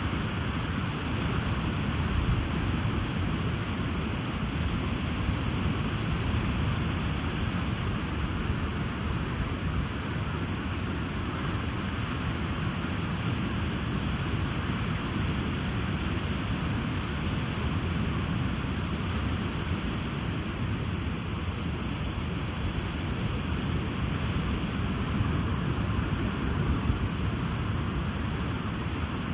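Ocean surf and wind on a beach: a steady rush of noise with a deep low rumble and only slight swells in loudness.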